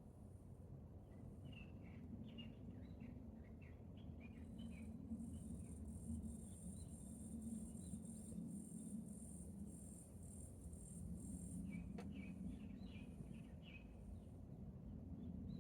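Faint summer outdoor ambience: a continuous high-pitched insect drone that swells and pulses, with two bouts of quick, short bird chirps, the first a couple of seconds in and the second a little over ten seconds in. A single sharp click comes about twelve seconds in, over a steady low rumble.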